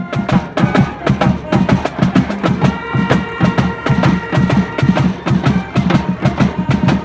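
Music with a fast, busy percussive beat over sustained pitched tones.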